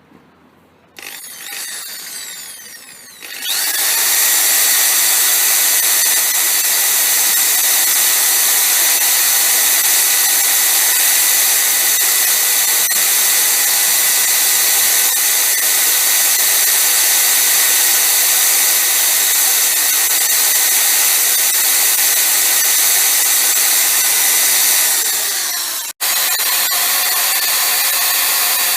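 Handheld power grinder spinning up with a rising whine, then running steadily at high pitch as it grinds down the top of a broken water pump stud. It cuts out for an instant near the end and picks up again.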